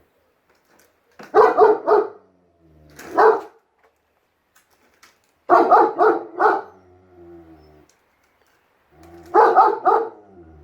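German Shepherd barking in quick volleys of three or four loud barks, three volleys and a single bark, with quieter low dog vocalizing in the gaps.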